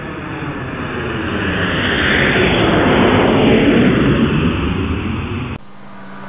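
Airliner on its takeoff roll heard from the cockpit: a loud, even rush of engine and airflow noise that swells to a peak about halfway through and then eases. About a second before the end it cuts abruptly to a different, quieter, steady hum.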